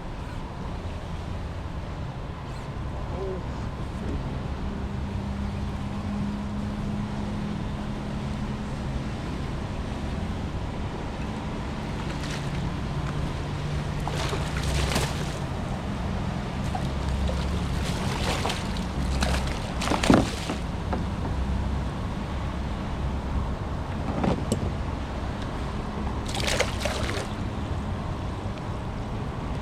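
Water sloshing and splashing against a kayak hull over a steady low rumble, with several short splashes, the loudest about twenty seconds in.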